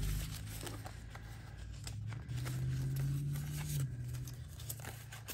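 Paper envelopes and receipts being handled: rustling and crinkling with scattered small clicks, over a low steady hum.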